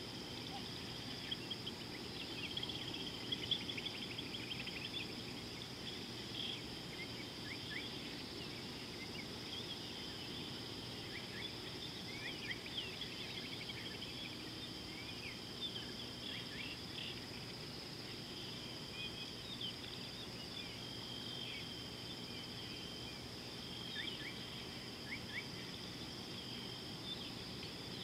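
Outdoor bush ambience: a steady, high-pitched insect drone runs throughout, with many short bird chirps scattered across it over a low background hiss.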